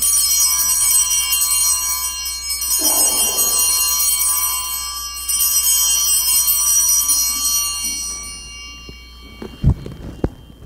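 Altar bells rung at the elevation of the consecrated host: three rings a few seconds apart, each leaving a bright, high ringing that slowly dies away. A few short knocks follow near the end.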